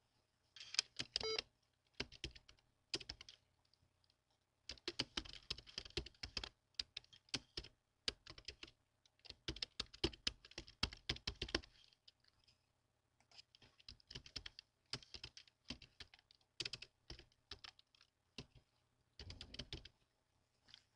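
Typing on a computer keyboard: several bursts of quick keystrokes separated by short pauses.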